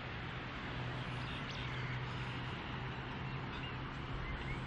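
Steady outdoor background noise with a low hum, and a few faint bird chirps near the end.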